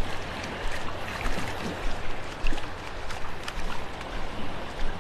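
Gentle waves lapping and washing in shallow water on calm seas, a steady watery hiss.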